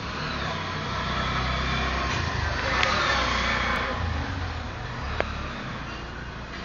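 A motor vehicle passing, its noise swelling to a peak about three seconds in and then fading, over a low steady hum. A single sharp click a little past five seconds in.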